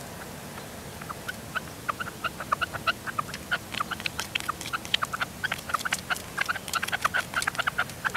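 Red-legged partridges calling at a decoy cage: a fast run of short sharp notes that starts about a second in and grows denser, as the caged decoy and the wild birds engage each other.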